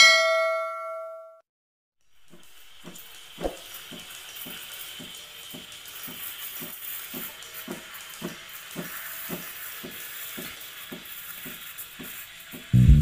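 A notification bell dings once and rings out for about a second. Then an espresso machine's steam wand hisses steadily as it steams milk in a stainless pitcher, with a low regular pulse about twice a second. Guitar-and-bass music comes in at the very end.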